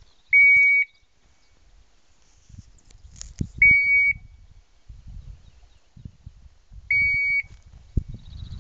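Hunting dog's beeper collar on an English setter sounding in point mode: a single high steady beep about every three seconds, three times, signalling that the dog is standing on point. Low rustling through the scrub between the beeps.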